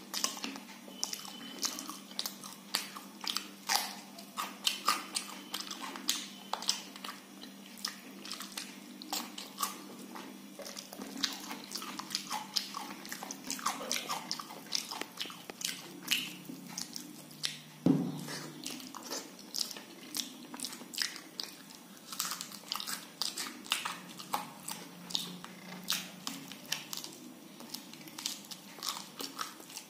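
Wet chewing and mouth clicks of a man eating khichdi and fried fish with his fingers, many short irregular smacks. A single louder thump comes about two-thirds of the way through.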